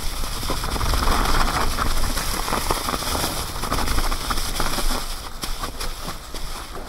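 Mountain bike tyres rolling through dry fallen leaves on a descent: a continuous rustle with many small clicks, and wind rumbling on the microphone underneath. It eases a little near the end.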